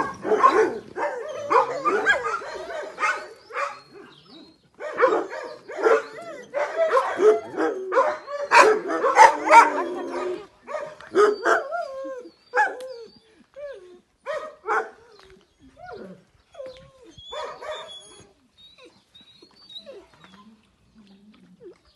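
Dogs barking: a dense run of barks for about the first ten seconds, then fewer and further apart, dying away in the last few seconds.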